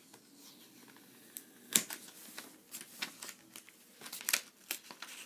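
Packaging crinkling and rustling as it is handled during an unboxing, in scattered short crackles that grow busier in the second half.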